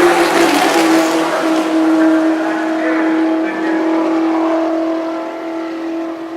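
Vintage Indy race car engine at high revs, loudest as the car passes close near the start, where its pitch drops slightly. A steady high engine note then carries on and slowly fades.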